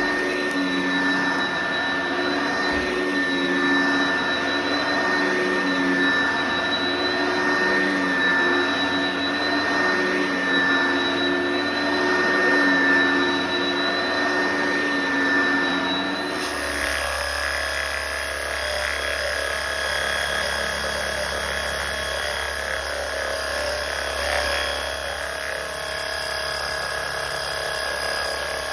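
Oreck XL upright vacuum cleaner running steadily over carpet, with a fixed motor whine. A bit past halfway it switches abruptly to a different steady motor hum with a low drone, from a spray wand misting cleaning solution onto the carpet.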